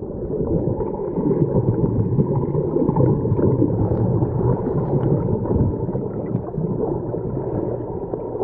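Steady, muffled rushing noise, dull and low-pitched, with no voices.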